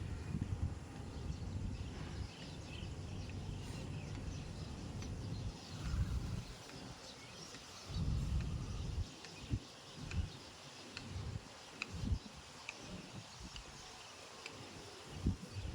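Wind buffeting the microphone in uneven gusts, stronger about six and eight seconds in and again near the end. Birds chirp briefly in the background.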